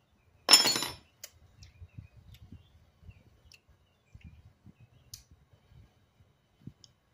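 A single sharp clink of kitchenware about half a second in, ringing briefly, followed by a few faint knocks and small ticks of handling.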